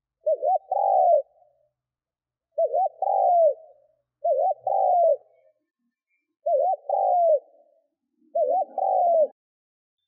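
Spotted dove cooing: five phrases roughly two seconds apart, each two short notes followed by a longer coo.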